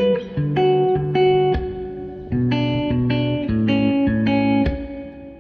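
Closing bars of a song: an electric guitar picks a slow phrase of single notes and chords, and the last chord rings out and fades away near the end.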